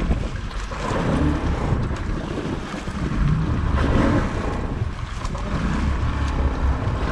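Wind buffeting the microphone in gusts over the wash of sea waves around a small boat on open water.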